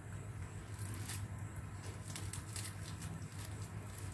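Faint, scattered crinkling and rustling of a small plastic prize wrapper being unfolded by hand, over a steady low hum.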